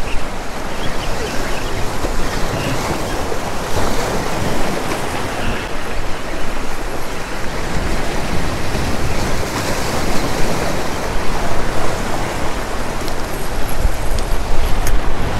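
Choppy surf breaking and washing against the granite blocks of a rock groin, a steady rush of water, with wind buffeting the microphone as a low rumble.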